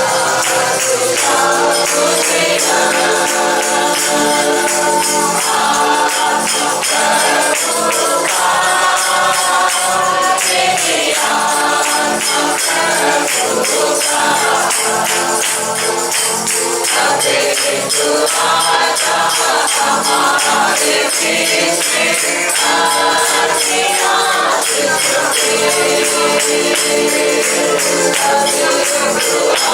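Worship song sung by a group of voices, with a tambourine jingling in a steady beat.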